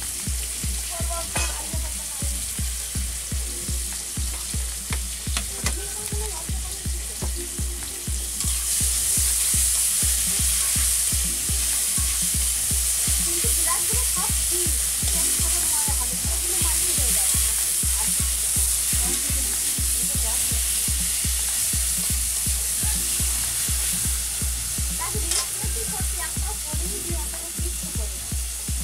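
Pieces of khoira fish frying in hot oil in a karahi, sizzling steadily while a metal spatula stirs and scrapes against the pan. The sizzle grows louder about eight seconds in. Under it runs a steady low thumping beat of about three pulses a second.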